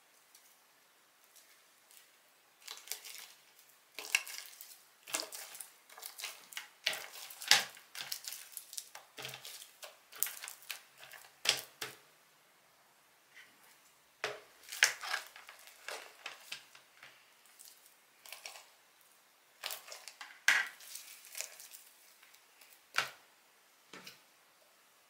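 Utensil clinking and scraping against a bowl in irregular bursts while slime is mixed, with a short lull about halfway through.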